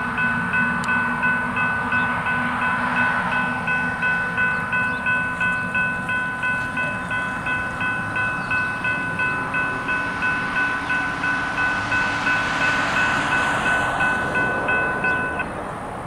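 Railroad crossing bell ringing steadily at about two strikes a second, then stopping shortly before the end, over the low rumble of an approaching train.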